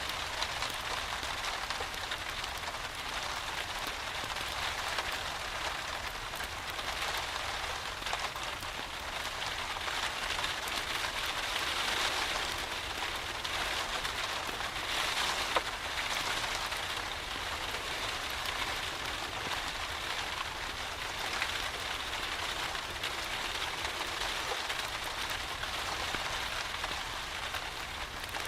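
Steady rain falling, a dense even hiss of many drops that swells a little midway, with one sharp click about halfway through.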